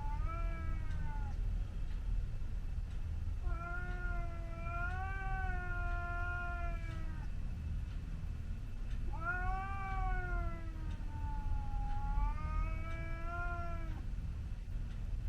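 Cat yowling in four long, drawn-out, wavering calls with pauses between them. This is the threatening caterwaul of a cat squaring off against a rival before a fight.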